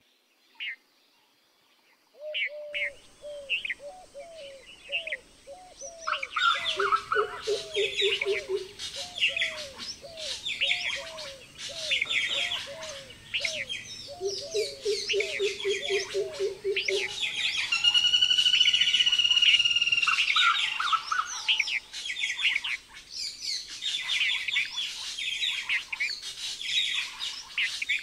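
Several birds calling at once, beginning about two seconds in: a steadily repeated series of short falling notes, fast low trills, and dense high chirps, with one long whistled note held for about two seconds past the middle.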